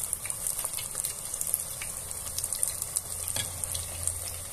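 Panko-breaded chicken strips deep-frying in hot oil: a steady sizzle full of small crackles and pops.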